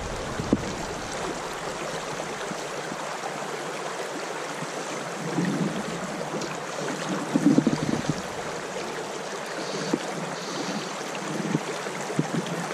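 Shallow river running over stones, a steady rush of water, with a few brief low rumbling surges, the loudest about seven and a half seconds in.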